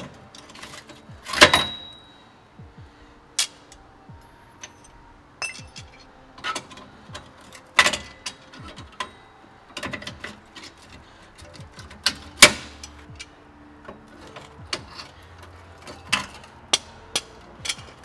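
Metal clicks and clinks of the parking-brake shoes, springs and hold-down hardware being worked off a rear drum-style parking brake with pliers. Two sharp clanks stand out, about a second and a half in and about twelve seconds in.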